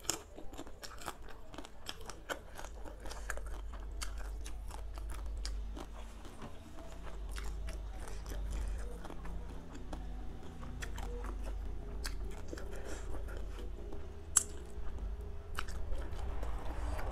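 Close-miked chewing and crunching of crispy deep-fried shrimp, a continuous run of sharp crackling bites with one louder crunch near the end.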